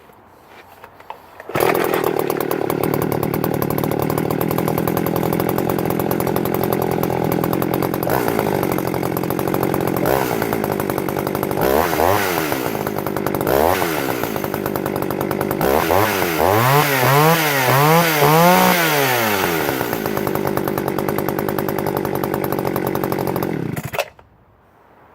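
Partner R517 two-stroke chainsaw, already warm, starting easily about a second and a half in and settling to a steady idle. The throttle is blipped a few times, then revved up and down several times in quick succession, before it drops back to idle and the engine cuts off suddenly near the end.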